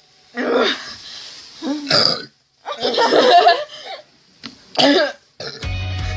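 A young woman belching loudly about four times in a row, with short gaps between. The longest burp comes about three seconds in. The burps are brought up by the carbonation of Sprite she has just chugged.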